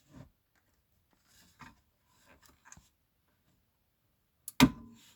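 Handling noise from taking a subwoofer apart: a few light clicks and scrapes, then one sharp knock about four and a half seconds in that rings briefly.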